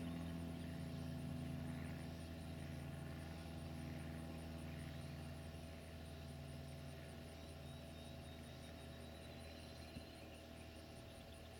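Twin-engine Cessna 421's piston engines droning as it flies away, the sound fading steadily. There is a single brief click near the end.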